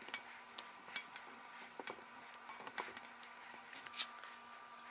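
A rubber spatula knocking and scraping against a mixing bowl and a glass baking dish while a cottage cheese mixture is scooped and dolloped. The sounds are faint, scattered clicks and taps.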